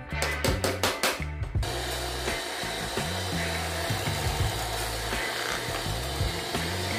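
Power drill with a twist bit boring into a wooden block, a steady whirring grind that starts about a second and a half in, over background music with a drum beat and bass line.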